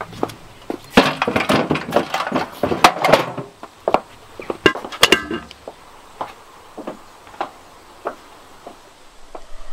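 Footsteps and clattering knocks, dense at first and thinning to single taps, with a brief ringing metallic clink about five seconds in.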